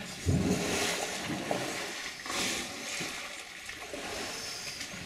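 Bull African elephants splashing and sloshing water in a waterhole, with a loud surge of splashing just after the start and another about two seconds in.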